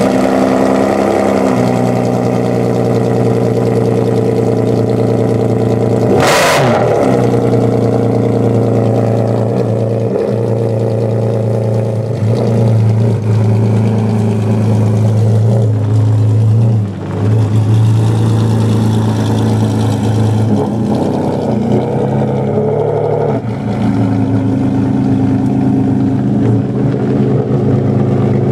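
Ferrari Enzo's V12, straight-through with a Larini decat and Tubi exhaust, idling loudly and steadily. It gives one sharp rev about six seconds in and a few smaller throttle blips later.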